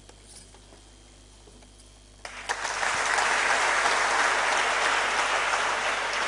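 Audience applauding in a lecture hall: after about two seconds of quiet, the clapping starts suddenly and keeps up steadily.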